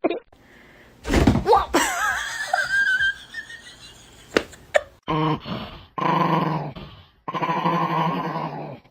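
A dog vocalising: a wavering high whine, then three long, low calls of about a second each in the second half.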